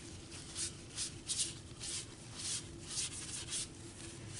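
A wad of paper tissue rubbing and dabbing over damp, paint-washed paper on a wooden tabletop: a series of short, uneven brushing strokes, about two a second. The paper is being blotted to lift some of the wet brown wash, lightening it and helping it dry.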